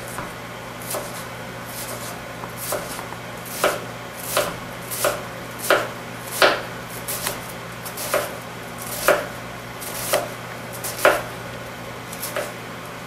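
Offset serrated knife finely dicing a Bermuda onion on a cutting board: a string of sharp knocks as the blade strikes the board, about one to two a second at an uneven pace.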